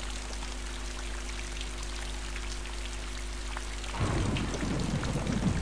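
Background ambient track of steady rain-like hiss under a faint held low chord; a louder low rumbling comes in about four seconds in.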